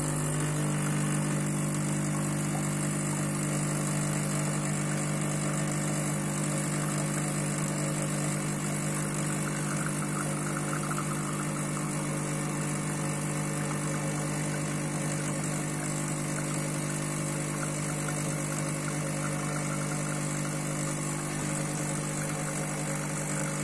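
ECM Puristika espresso machine's pump humming steadily as it pulls a shot of espresso into the glass.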